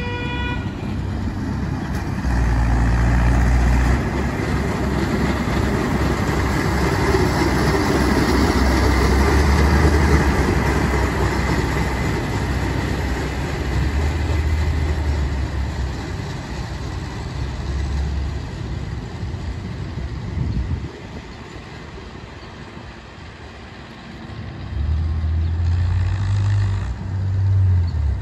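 Rail maintenance-of-way machines running along the track past the listener, a steady mechanical noise with a low rumble. A horn note cuts off just at the start. The noise eases off for a few seconds near the end and then swells again.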